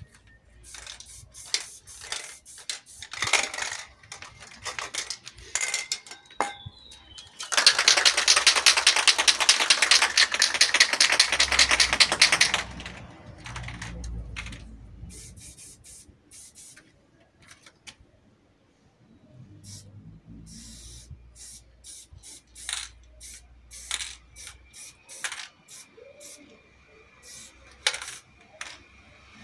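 Aerosol spray paint can in use: short spray bursts and clicks, then about five seconds of hard shaking with the mixing ball rattling rapidly inside the can, followed by more short bursts of spraying.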